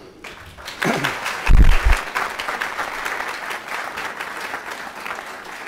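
Audience applauding, swelling within the first second and easing slightly toward the end, with a single low thump about a second and a half in.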